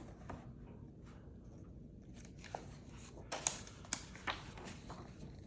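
Pages of a picture book being handled and turned: a soft paper rustle with a few sharp clicks a little past the middle.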